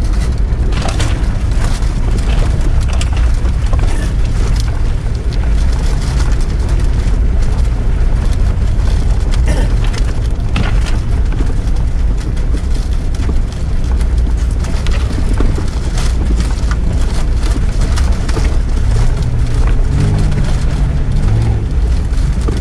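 Off-road 4x4 engine running under load, a steady low rumble heard from inside the cab, with scattered knocks and rattles from the body and suspension as the vehicle lurches over a rutted, muddy forest track.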